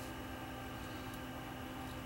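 Faint steady electrical hum with a few steady tones, from powered bench electronics, with no distinct events.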